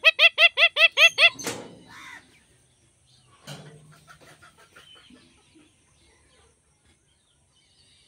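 Male rose-ringed parakeet calling: a rapid run of about eight sharp, ringing calls in the first second and a half, then a couple of weaker calls and faint chatter.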